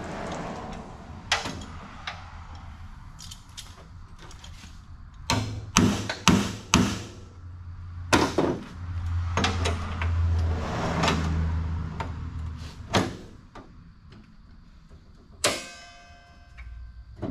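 Steel clanks, knocks and scraping as a clamp is fitted to a car's loose frame rail: a quick cluster of sharp knocks in the middle, and one metal clang near the end that rings on briefly.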